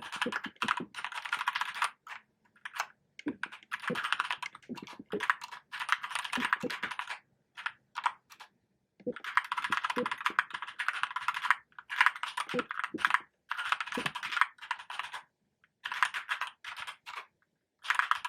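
Keychron K2 hot-swappable mechanical keyboard with brown switches being typed on: runs of fast keystroke clicks broken by short pauses, with a few louder strokes among them.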